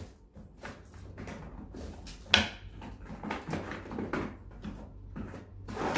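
Short, irregular knocks and clicks of things being handled in an open cabinet drawer, with the sharpest knock a little over two seconds in.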